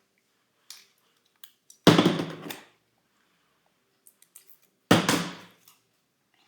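Two loud thunks about three seconds apart, with faint clicks and rustles between, as a small packaged fidget toy is handled and opened.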